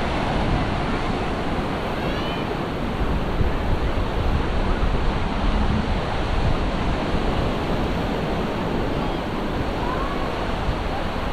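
Ocean surf breaking and washing onto a sandy beach: a steady, dense rush of waves.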